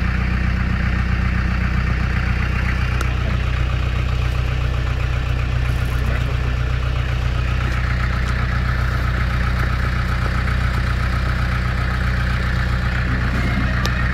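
A Jeep's engine running steadily at low revs with an even, low-pitched hum.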